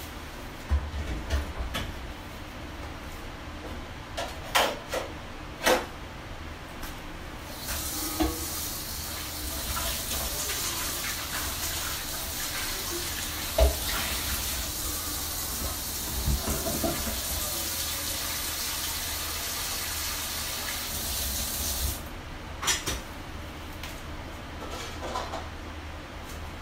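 Kitchen tap running steadily into a container held under it, from about eight seconds in until it is turned off about fourteen seconds later. Knocks and the clatter of handled kitchenware come before and after the water, with one sharp knock midway.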